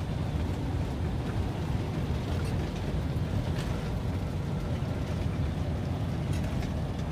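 Steady low rumble of a moving vehicle, unchanging throughout, with a few faint ticks over it.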